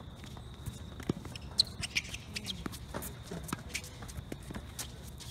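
Tennis rally on a hard court: sharp pops of the ball off racquet strings and off the court, with the scuff of footsteps and a few shoe squeaks about two seconds in.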